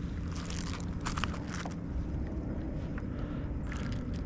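Short rustles and knocks of a fish being handled on a plastic measuring board in a kayak, over a steady low rumble.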